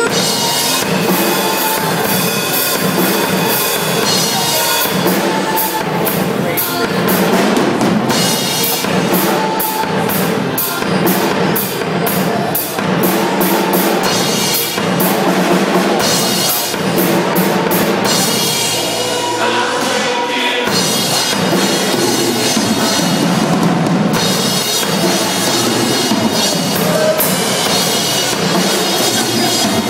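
Drum kit played live: a steady, loud beat of bass drum, snare and cymbals, with evenly spaced cymbal strokes, about three a second, through the middle stretch.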